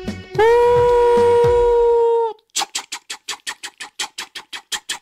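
Train sound effect: the end of a short music sting, then a train whistle sounding one loud held note for about two seconds, followed by a steady chugging of about five puffs a second.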